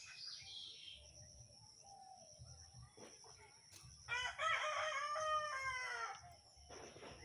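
A rooster crows once, a loud call of about two seconds starting around four seconds in, over a faint steady high-pitched hum.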